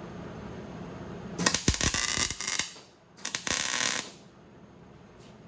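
Two short bursts of MIG welding from a small Hobart 140 wire-feed welder, about a second each, a moment apart: a crackling hiss as tack or short welds are laid.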